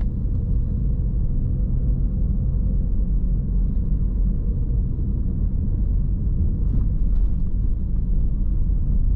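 Steady low rumble of a car driving along a town road, heard from inside the cabin: engine and tyre noise.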